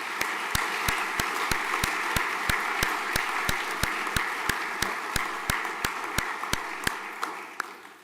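Audience applauding, with sharp, regular claps about three a second standing out above the general clapping; the applause fades away near the end.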